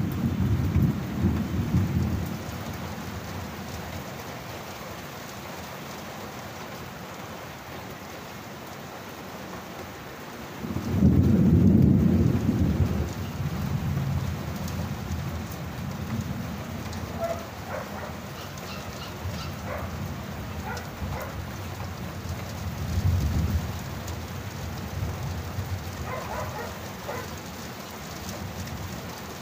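Steady rain with rolling thunder. Low rumbles swell at the start, most strongly about eleven seconds in, and again more briefly later on, with scattered drips ticking over the rain.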